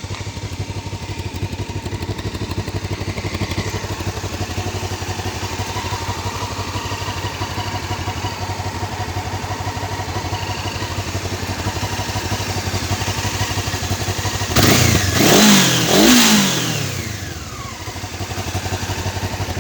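Honda CBF500 parallel-twin engine idling through its stock exhaust, with two quick throttle blips near the end that rise and fall in pitch before it settles back to idle.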